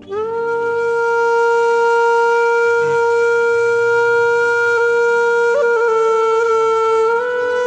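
Background film music: a wind instrument plays one long held note over a low drone. The note steps up slightly in pitch about seven seconds in.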